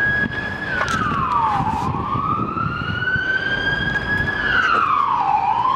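Emergency vehicle siren wailing: its pitch drops quickly, then climbs slowly back up, twice over, above a low rumble of street traffic.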